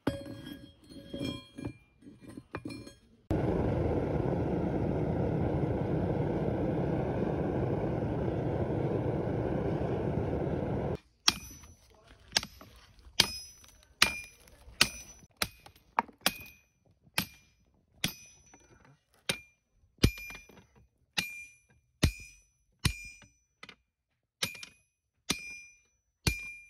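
A few light metal clinks as the steel bearing ring is set in the forge, then a loud steady rushing noise for about eight seconds that stops abruptly. After that a hand hammer strikes the red-hot bearing ring on a steel anvil about once a second, each blow ringing.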